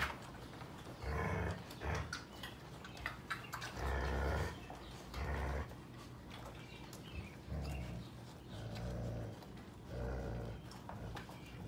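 Sheepadoodle dogs growling in about six short low bursts, with scattered small clicks between them.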